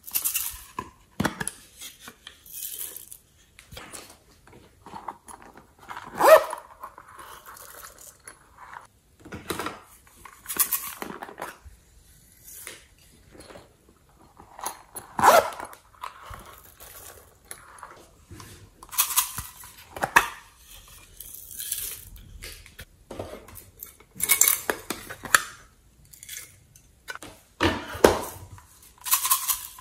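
Slime being mixed and squished: irregular sticky clicks, pops and crackles at uneven intervals, a few of them louder.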